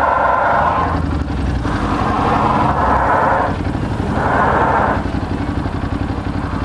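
A car doing a burnout: tyres spinning and squealing in three long stretches over a steady engine drone.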